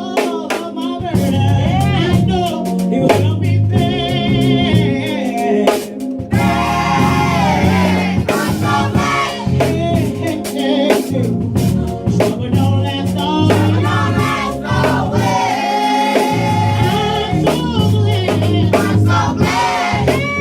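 Live gospel worship music: voices singing over a band with bass and drum kit.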